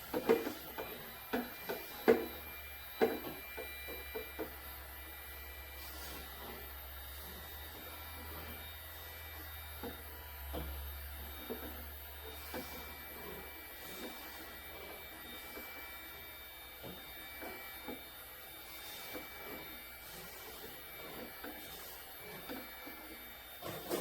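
Heat gun running steadily while warming an HDPE pipe, with scattered knocks and clicks from handling, the loudest in the first few seconds.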